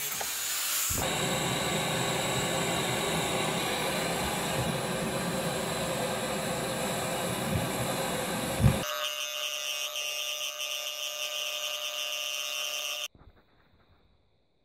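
Angle grinder with a cut-off disc cutting through a steel vehicle steering swivel: a steady, dense grinding noise that ends with one sharp knock about nine seconds in. A quieter sound with steady high tones follows, then the sound cuts out a second or so before the end.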